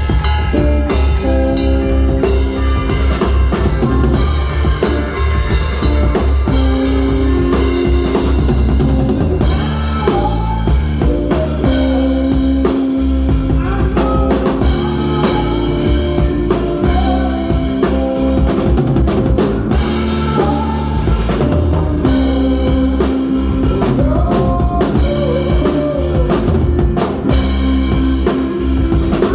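A band playing together: drum kit with kick and snare, bass guitar notes and electric guitar.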